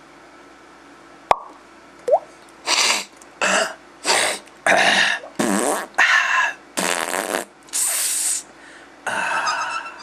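A person making a rapid series of fart noises, about nine short, raspy blasts one after another, preceded by a single sharp click and a brief rising squeak.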